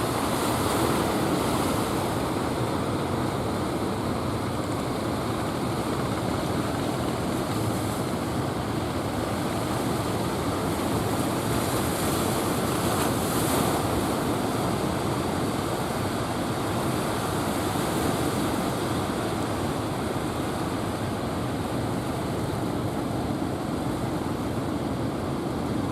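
Ocean surf washing onto the beach in a steady rush of noise, swelling a little about twelve to fourteen seconds in, with wind on the microphone.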